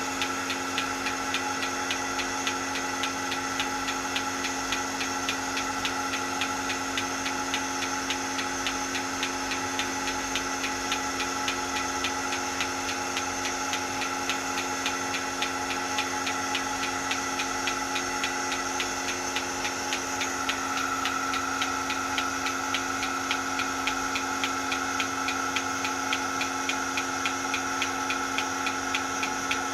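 Milking machine running: a steady mechanical hum with a fast, even ticking, typical of the pulsator working.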